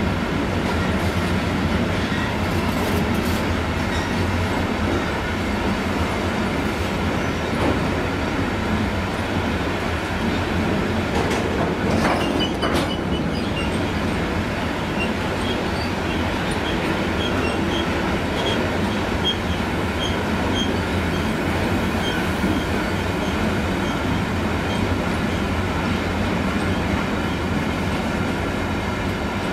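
Freight train of covered hopper wagons rolling past steadily: a continuous rumble and rattle of wheels on the rails. There is a louder clatter about twelve seconds in, and brief faint wheel squeals come and go after it.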